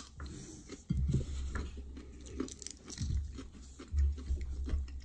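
A person chewing food close to the microphone, with crisp, crunching bites and a few dull thuds.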